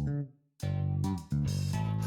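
Background music led by bass and guitar: a phrase ends shortly after the start, a brief gap, then the next phrase begins about half a second in.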